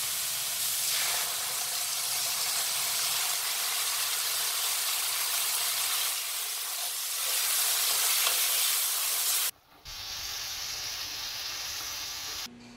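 Chicken, onion and green chili frying in a wok with a steady, loud sizzle as jajang sauce is added and stirred in. About nine and a half seconds in the sound cuts off, and a quieter sizzle of the sauced stir-fry follows.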